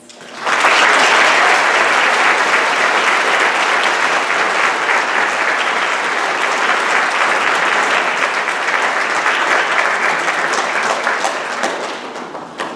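Audience applauding, starting abruptly about half a second in, holding steady, and dying away near the end.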